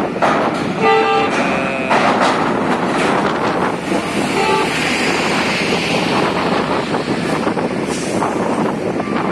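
A vehicle horn tooting twice, a longer toot about a second in and a short one about four and a half seconds in, over steady heavy-vehicle traffic noise.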